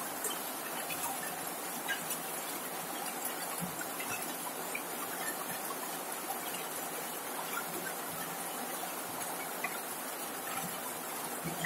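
Heavy rain falling steadily, an even hiss with scattered small ticks of individual drops.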